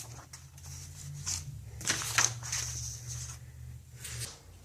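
Paper rustling and crinkling in irregular bursts as paper letter templates are handled and laid out, over a low steady hum.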